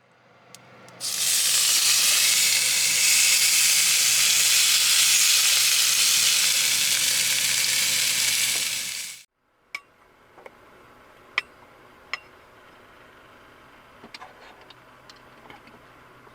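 Food sizzling in a hot frying pan: a loud, steady sizzle that starts suddenly about a second in and cuts off sharply after about eight seconds. Faint clicks and taps follow.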